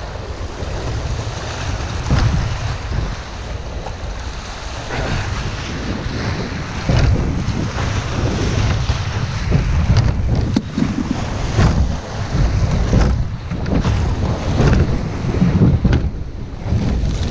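Small waves washing and breaking over the stones of a rocky shore, the water surging in and out, with strong wind buffeting the microphone. A couple of sharp knocks sound about ten seconds in.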